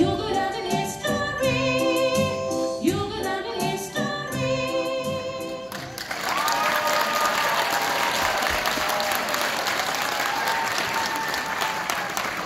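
A song with a singing voice and steady beat plays, then stops abruptly about six seconds in and the audience bursts into applause, with some voices cheering over the clapping.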